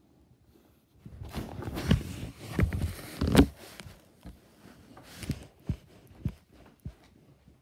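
Handling noise from the recording device: close rustling and several sharp knocks for about three seconds, beginning about a second in, then a few lighter scattered clicks.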